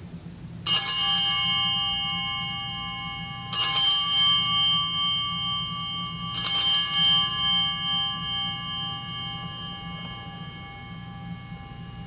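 Altar bell struck three times, about three seconds apart, each ring fading slowly; it marks the elevation of the chalice at the consecration.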